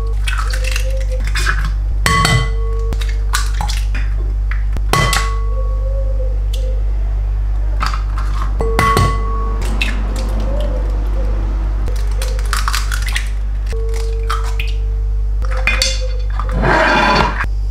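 Eggs cracked one after another against a glass mixing bowl: a sharp tap every few seconds, several leaving the glass ringing briefly, over a steady low hum.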